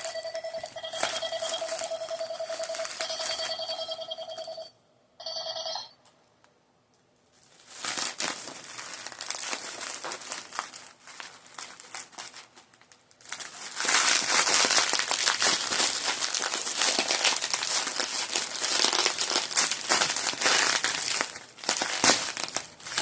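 Plastic packaging crinkling and rustling during an unboxing, loudest in the second half. It is preceded by a steady pitched tone that stops about five seconds in, after a brief repeat.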